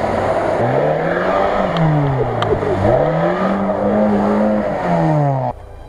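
Off-road 4x4 engine revving up and down as the vehicle ploughs through deep water and mud, with splashing and spray over the engine note. The sound drops away abruptly near the end.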